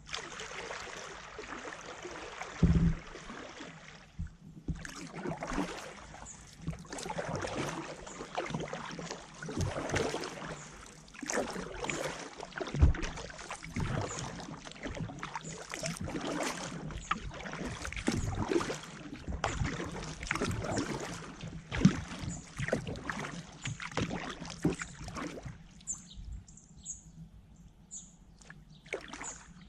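Kayak paddling: the paddle blades splash and drip water in an irregular run of strokes, with a few louder knocks. Near the end the paddling dies down and a bird chirps a few times.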